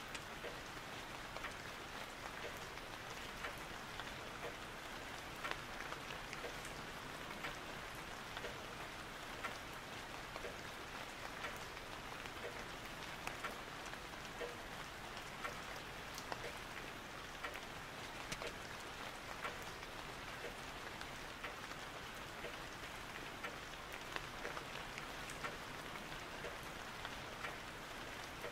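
Steady rain falling, an even hiss with many small, irregular drop ticks.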